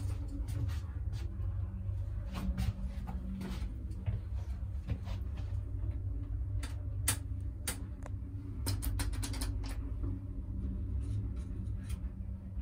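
Old Ascel one-speed traction elevator heard from inside the moving car: a steady low hum with light clicks and rattles, including a quick run of clicks about nine seconds in.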